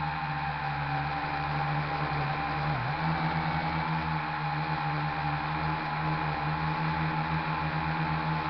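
Electric motor and propeller of an RC plane heard through its onboard camera, a steady droning whine over wind rush, with brief small dips in pitch as the throttle shifts.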